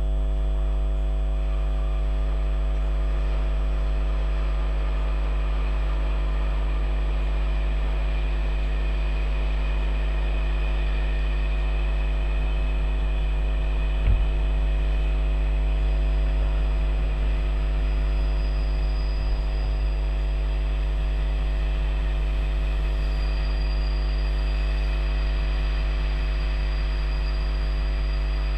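Loud, steady electrical hum with a buzz of overtones, unchanging throughout. Underneath it, passenger coaches roll faintly past, with a single click about 14 seconds in.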